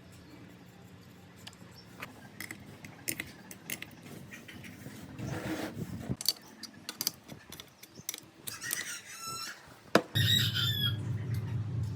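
Scattered clicks and squeaks of hand work. Then, after a sharp knock about ten seconds in, a motor starts and runs steadily with a low hum.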